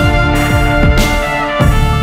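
Background music: held chords over a heavy, regular beat.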